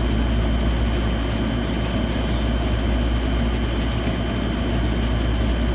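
Steady low machine hum, like a motor or engine running, with a thin constant high whine above it.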